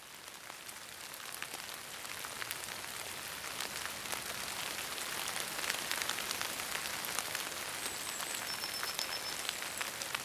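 Steady rain falling, a dense hiss full of small drop ticks that fades in and grows louder over the first few seconds, with a few faint high chirps near the end.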